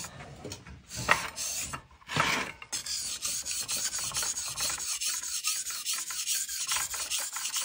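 A steel knife blade being stroked back and forth over a sharpening stone, rasping with each pass as the edge is sharpened. A few separate strokes come first, then from about three seconds in the strokes turn quick and even.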